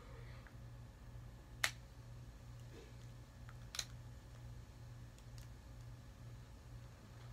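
Plastic parts of a Transformers Studio Series Sideswipe action figure being handled and moved during its transformation. There are two sharp clicks about two seconds apart, the first the louder, with a few faint ticks between them.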